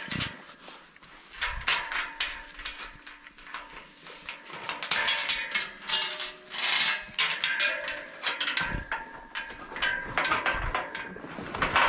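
Chain rattling against a metal pipe gate, with repeated clanks and short metallic ringing as the gate is unchained and handled.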